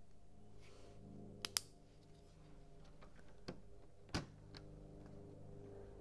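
Plastic LEGO bricks clicking and tapping as a piece is handled and pressed into a model: a few sharp clicks, the loudest two close together about one and a half seconds in, and another about four seconds in.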